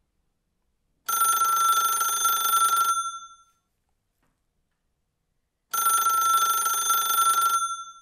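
Rotary desk telephone's mechanical bell ringing for an incoming call: two rings of about two seconds each, with a pause of nearly three seconds between them.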